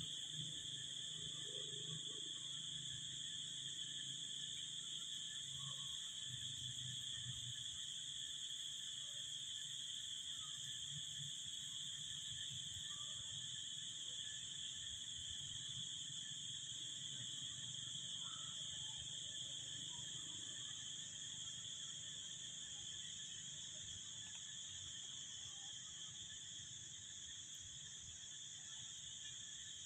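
Steady insect chorus, a continuous high-pitched shrill drone that does not change.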